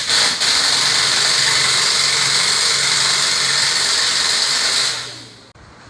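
Pneumatic wrench blipped a few times, then run steadily for about four and a half seconds before stopping, as bolts are undone to remove a camper van's front shock absorbers.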